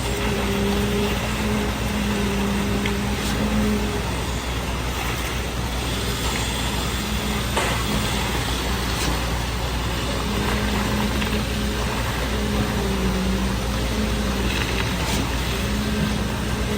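Heavy engine of concrete-pouring machinery running steadily, with a hum that cuts in and out every second or two.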